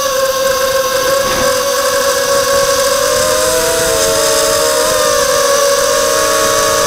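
Brushless motors and propellers of a Morphite 180 FPV quadcopter whining steadily in flight over a hiss, heard through the camera mounted on the quad. From about three seconds in the whine splits into several close, wavering pitches as the motors change speed, drawing back together near the end.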